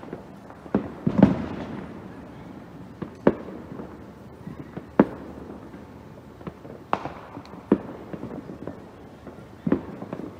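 Aerial fireworks bursting: irregular sharp bangs about every second or two, the loudest about a second in with a brief low rumble after it.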